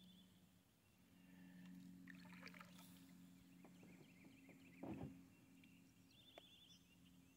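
Near silence on the water: a faint steady low hum, two short high trills, and one soft knock about five seconds in.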